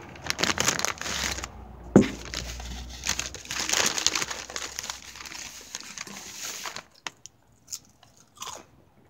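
Rustling, crinkling handling noise with a sharp knock about two seconds in; the rustling stops near seven seconds, and a few faint clicks follow.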